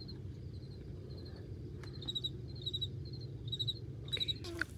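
Crickets chirping: short pulsed chirps repeating about twice a second over a low steady rumble.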